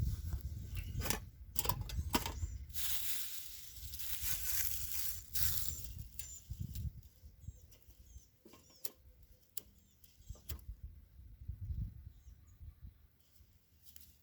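Dry pine needles rustling and crackling as they are handled, with scattered clicks and taps. Denser at first, then thinning to sparse clicks.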